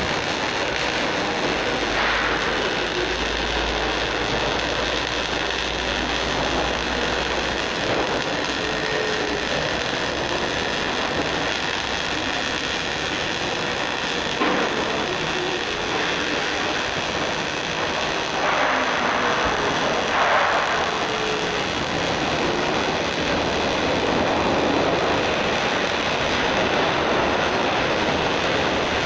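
Steady, continuous mechanical noise from a sheet-metal duct workshop, with a low hum in roughly the first third.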